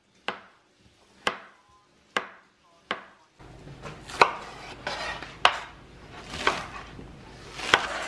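Kitchen knife slicing zucchini on a cutting board: four sharp knocks about a second apart. A few seconds in, after a cut, the knife goes through a bundle of green onions, each stroke longer and scratchier, over a steady background hiss.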